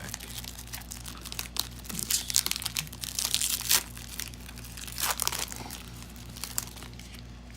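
Foil Pokémon booster pack wrapper crinkling in irregular bursts as it is handled and torn open.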